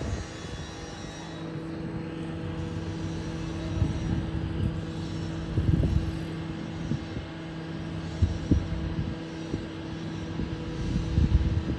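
Standing tram humming steadily with its electrical auxiliaries running, a drone of several constant tones, with a few irregular low rumbles a couple of seconds apart.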